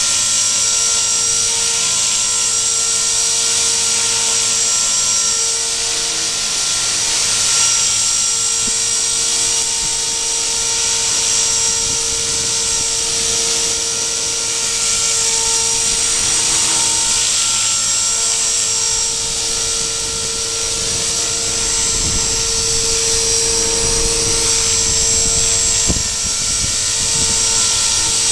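Radio-controlled model helicopter flying, its rotor and motor giving a steady whine that shifts slightly in pitch as it holds against the wind. Wind buffets the microphone with low rumbles from about three quarters of the way in.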